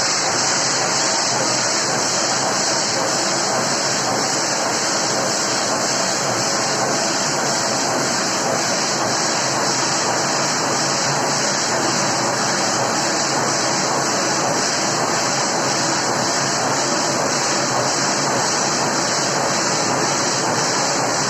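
Steam hissing steadily into a Tonello industrial denim washing machine as it takes in steam ahead of a denim wash. The high hiss stays loud and even throughout, over a duller rushing noise.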